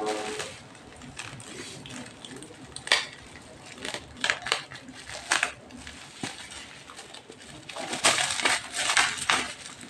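Bubble-wrap packaging crinkling and rustling as it is handled, with short sharp crackles as a strip of tape is peeled off it. The crackling comes in scattered bursts and is densest near the end.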